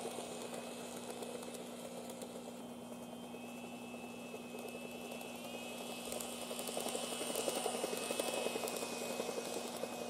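N-gauge model train motor car running on the track, with a high motor whine over a rapid 'poko-poko' popping rattle from its drive. The rattle is an abnormal noise that a new motor and cleaned worm gears did not cure, and that the owner traces to the bogie gears.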